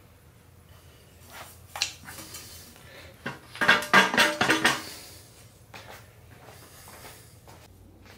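Metal tools or parts clinking against each other: a single clink about two seconds in, then a loud burst of ringing clinks and rattles about halfway through, followed by a few light taps.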